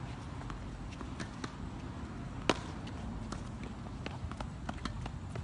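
A tennis ball struck by a racket: one sharp crack about two and a half seconds in, the loudest sound. Fainter scattered taps of play on the hard court sit over a steady low background rumble.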